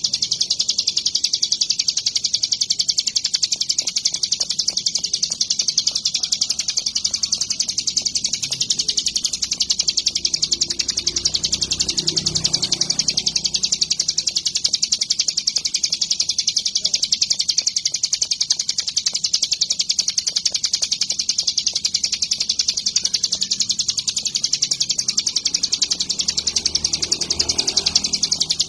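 Ciblek gunung (a prinia) singing a continuous, rapid, high-pitched trilling chatter without pause.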